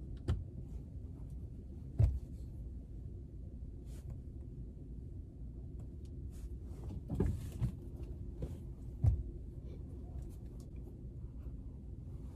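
Low steady hum inside a car cabin, with a few soft knocks and rustles of someone shifting in the driver's seat; the sharpest is a click about two seconds in.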